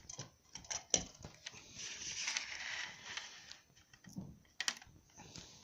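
Small metal clicks and a brief scraping rasp from handling a lock pick and a lock cylinder, with sharper clicks about a second in and again near the end.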